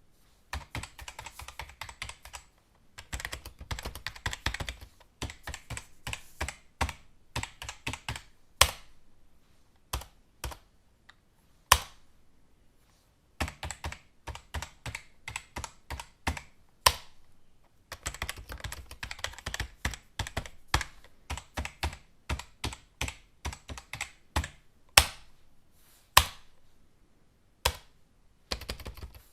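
Typing on a computer keyboard: quick runs of rapid keystrokes broken by short pauses, with an occasional single louder key strike standing out.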